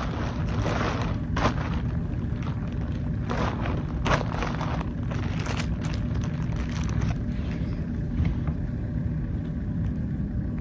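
Steady low rumble of a car interior, with a few short rustles.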